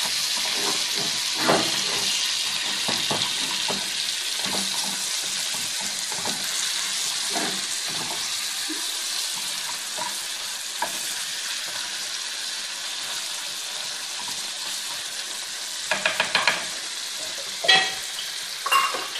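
Meat sizzling as it browns in a clay tagine, stirred with a wooden spoon: a steady frying hiss with soft scrapes and knocks. Near the end comes a quick run of sharp knocks, then two more, from the spoon against the pot.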